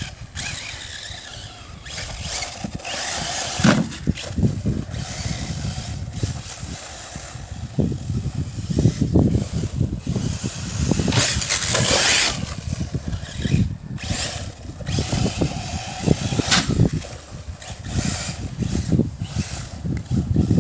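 Arrma Typhon 6S electric RC buggy driven hard across a grass track, its brushless motor and tyres rising and falling in irregular bursts of throttle.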